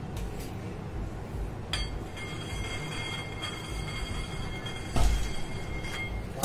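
Handling noise from smoothing buttercream on a plastic cake turntable: the turntable turns while a metal scraper rubs the icing, with a click near the start and a louder knock about five seconds in, over a faint steady high whine.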